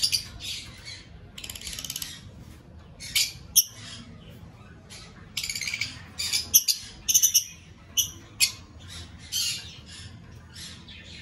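Yellow-mutation Fischer's lovebirds giving a run of shrill chirps and squawks, many short calls with a couple of longer rasping chatters.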